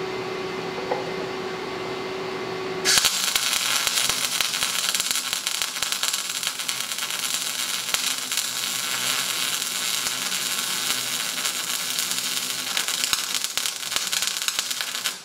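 A steady hum, then about three seconds in an Everlast 211si MIG welder's arc strikes and crackles and sizzles continuously for about twelve seconds before cutting off suddenly. It is welding at 18.7 volts and about 325 inches per minute wire speed, settings that run a little better.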